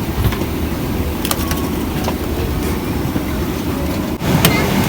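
Steady low rumble of an airliner cabin, engines and airframe running, with a few short clicks and knocks.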